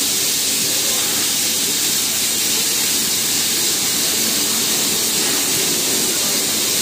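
Steady, loud hiss of steam escaping from the standing NSW 3801 steam locomotive, a streamlined 4-6-2.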